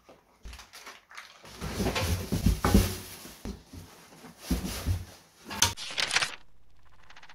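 Office chair parts being unpacked from a cardboard box: irregular rustling and crinkling of plastic wrapping with scraping and knocks of cardboard. It stops abruptly about six seconds in, leaving only a faint steady background sound.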